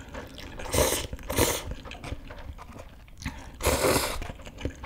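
Close-miked slurping of instant noodles: two short sucking slurps in the first second and a half and a longer, louder slurp near the end, with small wet mouth clicks of chewing between.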